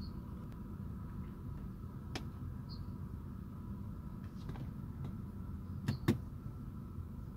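Steady low rumble with a few sharp clicks, the loudest a quick double click about six seconds in, typical of a car being handled, its doors, trim or controls clicking.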